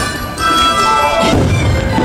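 Orchestral fireworks-show soundtrack playing loudly, with low booms from fireworks shells bursting, one about half a second in and another near the end.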